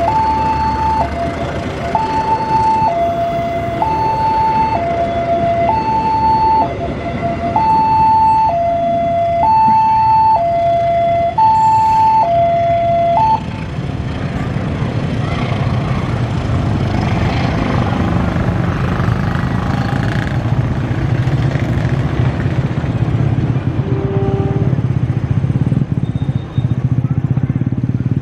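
Two-tone electronic railway level-crossing alarm, alternating high and low about once a second, which stops about 13 seconds in once the train has gone by. Under it and after it is the steady low rumble of the passing passenger train's wheels on the rails.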